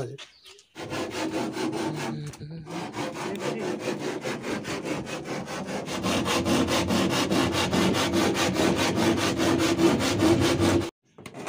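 Handsaw cutting through a plywood sheet with quick, even back-and-forth strokes, trimming the sheet to size. There is a brief pause about two seconds in, and the sawing stops suddenly just before the end.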